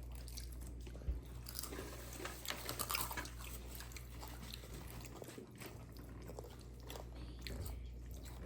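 Close-up biting and chewing of crispy-breaded fried chicken: irregular crunches and wet mouth sounds, busiest about two to three seconds in, with a single knock about a second in, over a steady low hum.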